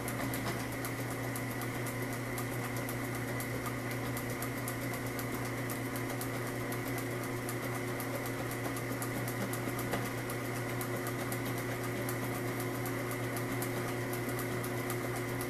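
Delta bench-top drill press motor running steadily with a 7/64-inch bit, as the bit is fed down into a small nylon spacer to drill a pilot hole.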